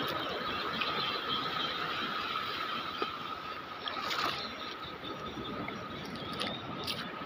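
Feet in flip-flops wading through ankle-deep seawater over a rocky reef flat, with light sloshing and a few clicks, over a steady hiss and a constant high hum.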